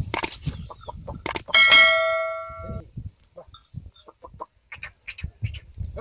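A subscribe-button sound effect: two sharp mouse clicks, then a bright bell ding that rings for about a second. After it come short, scattered clucking calls.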